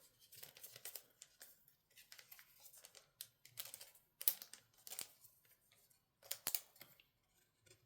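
Faint, scattered rustling and light clicks of trading cards being slid into plastic card sleeves, with a few sharper ticks about four to six and a half seconds in.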